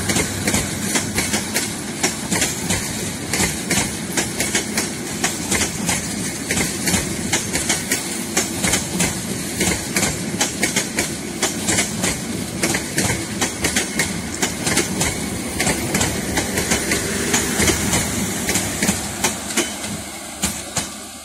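Intercity passenger train coaches rolling past close by, their wheels clattering in a quick run of clicks over the rail joints above a steady rumble. The sound starts fading near the end as the train moves away.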